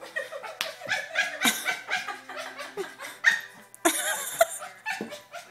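A Boston Terrier making a series of short, chimp-like vocal noises, mixed with people laughing.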